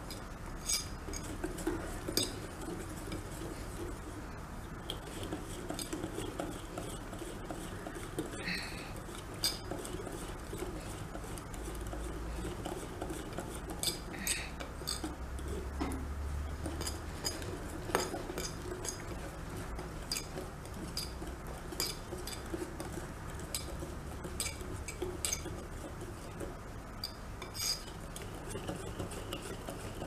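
Wire whisk beating thick chocolate cake batter in a glass bowl, mixing out the lumps: the wires click against the glass every second or so over a steady wet stirring sound.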